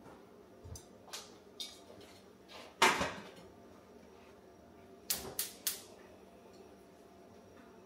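Kitchen handling noises: a few light taps, then one loud knock about three seconds in and three quick sharp clicks around five seconds in.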